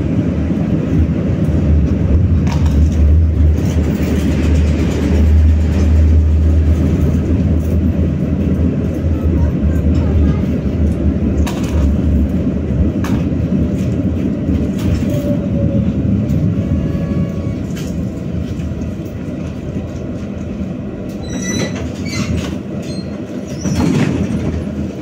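BKM-60102 tram running along the rails, heard on board. A low motor hum is strong in the first half and fades, with steady rolling noise and occasional clacks from the wheels over rail joints. A short bunch of clacks and squeaks comes near the end.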